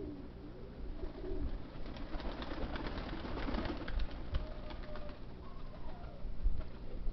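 Domestic pigeons cooing, with a stretch of rustling and light clicks in the middle.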